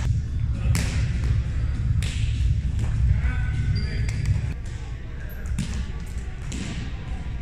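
Roundnet rally in a large gym hall: several sharp slaps of the ball being served and hit, over a steady low rumble of the hall and scattered voices.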